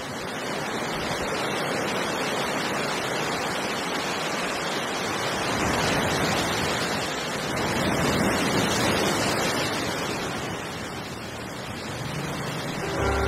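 Sea waves, a steady rush of surf that swells and eases slowly.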